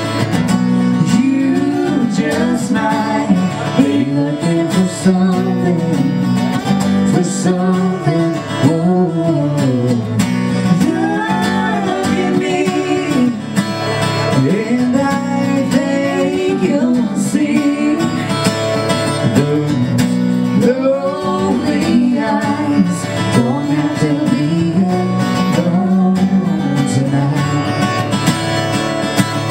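Live country song: singing over guitar accompaniment, running continuously.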